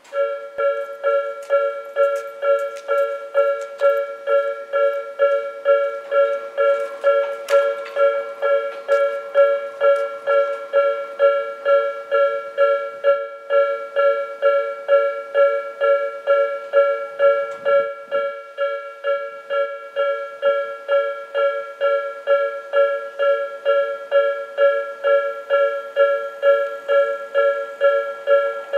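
Electronic warning bell of a Japanese railroad crossing ringing: a two-tone ding repeating evenly a little under twice a second, starting suddenly. It signals that the crossing is active and a train is approaching.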